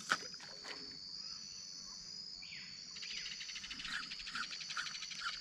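Insects shrilling steadily in the background, with a faster pulsing chirp joining in about three seconds in.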